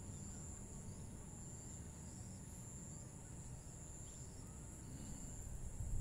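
Insects trilling steadily at a high pitch in the background, with a few faint short chirps over a low rumble.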